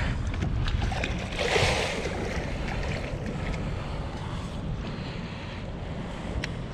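Wind rumbling on the microphone over water lapping at a kayak, with a splash about a second and a half in as a hooked redfish thrashes at the surface beside the kayak, and a few light ticks.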